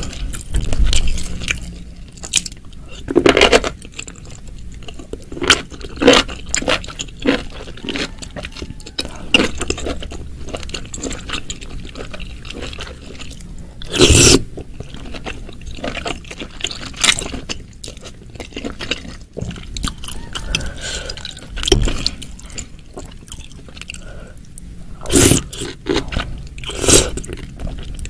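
Close-miked eating: wet chewing and slurping of shimeji and oyster mushrooms and meatball in a thick spicy sauce, with a fork scraping and clinking in the glass bowl. Short clicks and smacks run throughout, with several louder wet slurps, the loudest about halfway through.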